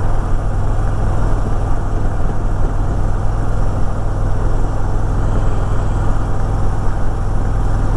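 Harley-Davidson Electra Glide Ultra Limited V-twin engine running steadily while riding, with even wind and road noise.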